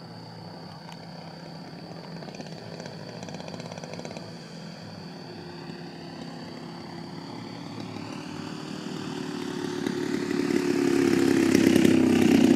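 Single-cylinder DLE 55cc two-stroke gas engine of a giant-scale RC aerobatic airplane running, growing steadily louder from faint to loud as the plane comes in close.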